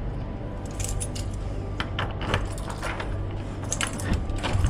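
Repeated light metallic clinking and jingling of small hard objects, over a steady low hum.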